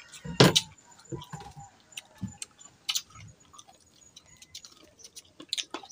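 Scattered crisp clicks and crunches of people biting into and knife-cutting unripe green mangoes, one sharp crunch about half a second in and a few smaller ones after.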